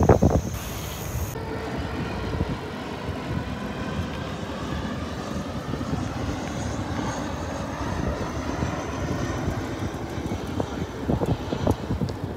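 Steady rushing noise of riding a bicycle on a road: wind buffeting the camera microphone, over tyre and road noise.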